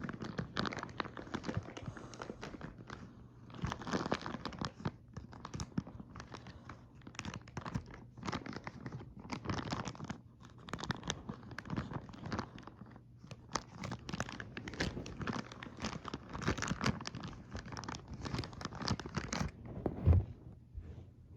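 Packaging of a Happy Meal toy being crinkled and torn open by hand, an irregular run of crackles and rustles. A single louder knock comes near the end.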